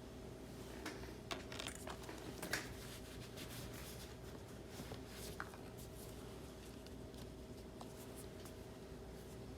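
Small clicks and scrapes of hand tools working on an iPad during a home-button transfer, bunched in the first few seconds with a few more around the middle, over a steady low hum.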